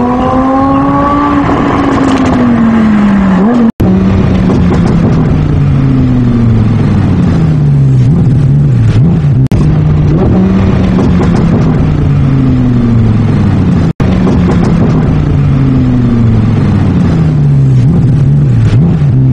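Lamborghini supercar engine revving up, then running through a series of falling pitch sweeps that each jump back up, with two brief dropouts in the sound.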